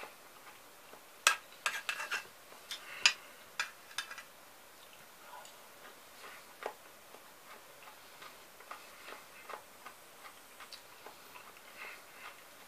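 Sharp, irregular crisp clicks and cracks from fresh cucumber salad being crunched while chewing: a quick flurry of loud ones in the first few seconds, then fainter scattered clicks.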